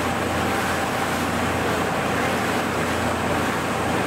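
Tour boat under way: its engine running steadily with water and wind rushing past.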